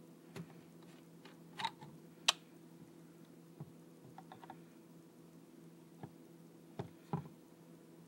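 A Zippo lighter being handled and struck: about eight sharp clicks and short rasps at uneven intervals, the loudest about two seconds in, over a faint steady low hum.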